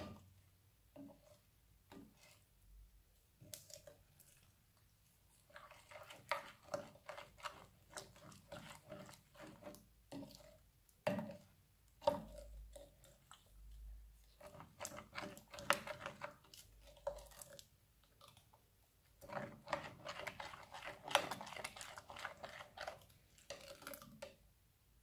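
Crunchy slime being squeezed and pressed, crackling and popping in three long stretches, with a few single clicks in the first few seconds.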